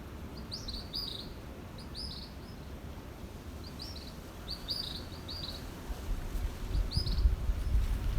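Birds chirping: short high chirps in quick groups of two or three, repeating about once a second. A low rumble builds in the last two seconds.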